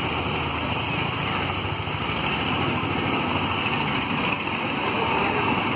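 Old Kirloskar diesel engine running steadily at an even speed.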